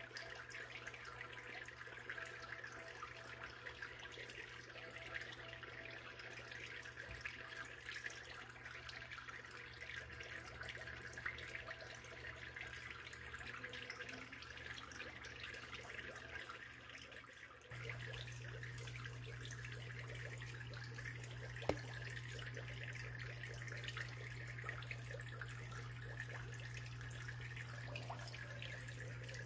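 Water trickling and bubbling in an aquarium tank over a steady low hum, which gets louder after a change about 18 seconds in.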